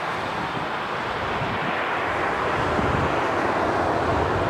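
Distant jet engine noise of a landing Airbus A380 on its rollout: a steady rushing roar with a low rumble under it, growing slightly louder through the second half.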